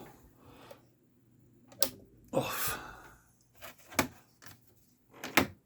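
A few sharp separate clicks and knocks of equipment being handled and switched off, with one short breathy sigh about two and a half seconds in.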